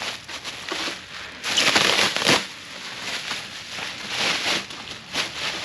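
Packing material crinkling and rustling in irregular bursts as an exhaust header is lifted out of its box, loudest about two seconds in.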